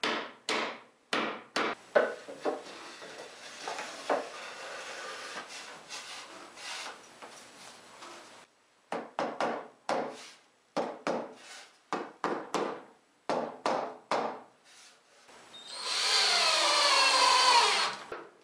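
A quick run of short knocks and rubs as glued wooden box parts are handled and fitted together, then a cordless drill running for about two seconds near the end, its pitch shifting as it drives a screw into the wood.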